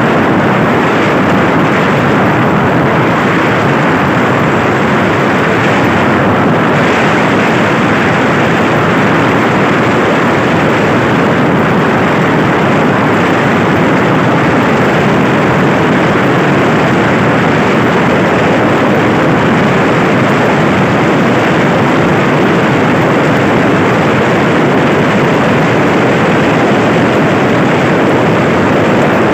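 Heavy rain falling, a loud, steady hiss without a break.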